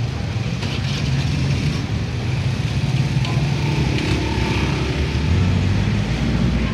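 Low, steady engine rumble of a nearby motor vehicle over general street-market noise.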